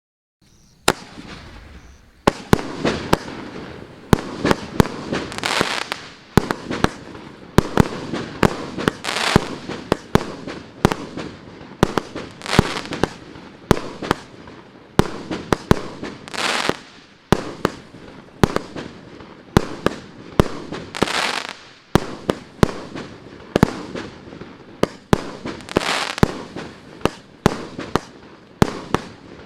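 Maxsem SB 49 02 firework battery firing a long, rapid string of shots: sharp bangs with crackling hiss between them, starting about half a second in.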